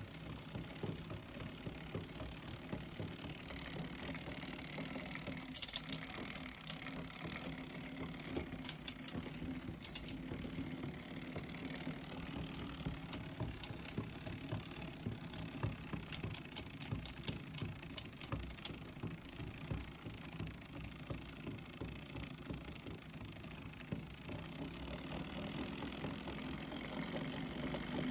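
New Shimano XT M8000 bicycle drivetrain running with irregular knocks and clicks, the strange knocking the owner is showing, over a steady low hum. A loud double knock comes about six seconds in.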